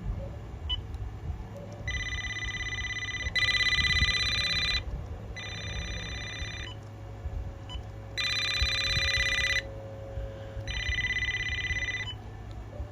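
Electronic ringer of a RadioShack 43-1704 two-line cordless phone ringing. It gives five trilling bursts of about a second and a half each, alternately softer and louder.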